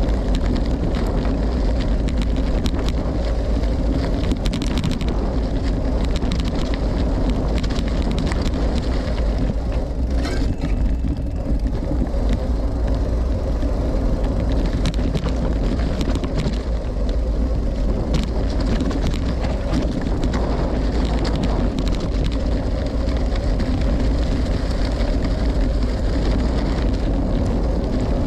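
Riding noise from a gravel bike in motion: wind rumbling on the microphone over the steady roll of its Maxxis Rambler tyres, with frequent small clicks and rattles.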